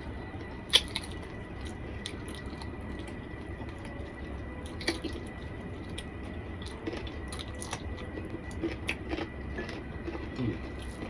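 Person eating curry and khichuri by hand: soft wet, squishy sounds of food being mixed and chewed, with scattered sharp clicks, the loudest about a second in.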